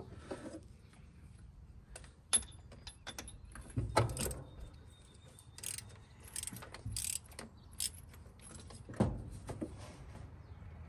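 Hand socket ratchet clicking in short runs as a spark plug is unscrewed from the truck's inline-six engine, with a few louder knocks of metal on metal.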